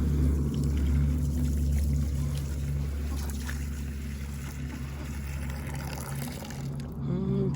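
A steady low engine-like hum, with water trickling faintly.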